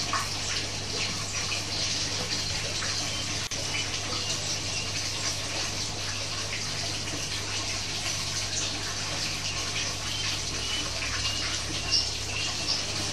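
Steady rushing hiss with a low steady hum underneath.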